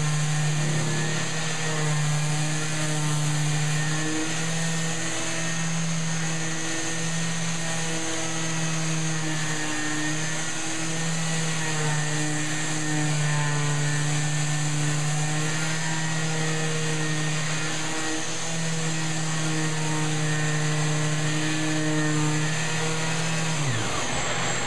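Festool half-sheet orbital sander running on a hardwood door frame, a steady hum whose pitch wavers slightly as it is pushed back and forth across the joint, with the hiss of a dust extractor drawing through its hose. Near the end the sander is switched off and winds down with a falling pitch.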